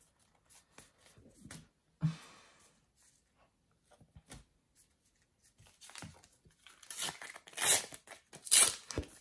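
A Panini sticker packet being torn open: several loud rips of the wrapper near the end, after a few soft taps and rustles of stickers being handled.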